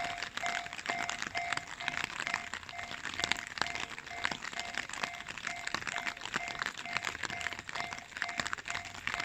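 Japanese level-crossing electronic warning bell ringing steadily at about two strikes a second. Dense crackling noise runs underneath.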